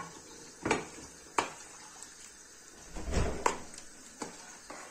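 Metal ladle clinking and scraping against the side of a large stainless steel pot while stirring a thick tomato, eggplant and pepper mixture, with about half a dozen sharp clinks spread unevenly through the stir.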